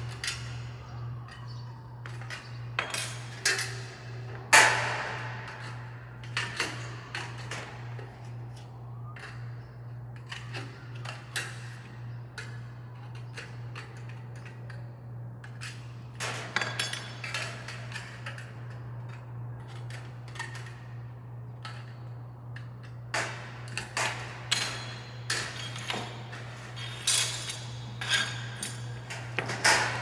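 Tin snips cutting the flanges off light-gauge steel studs: irregular sharp snips and metallic clinks in clusters with pauses, and one loud clank about four and a half seconds in.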